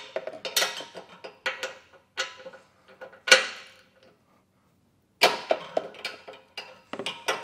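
Hand wrench ratcheting and clicking as the base-plate bracket bolts are torqued down, with one sharp, loud click about three seconds in and a second run of clicks after a short pause.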